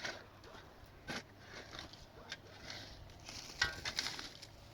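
A few light clicks and knocks at irregular intervals, with a small cluster of them near the end, over faint background noise.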